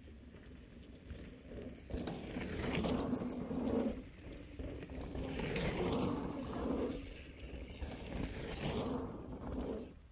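Dirt-jump mountain bike rolling in over packed dirt, knobby tyres rumbling and the rear hub's freewheel ratchet buzzing as the rider coasts toward the jump. It comes in several swells, louder from about two seconds in, and fades just before the end as the bike leaves the lip.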